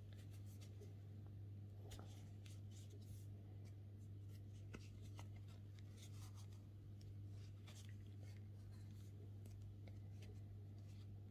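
Faint rustling and light scratchy clicks of a metal crochet hook pulling thick T-shirt yarn through stitches, over a steady low hum.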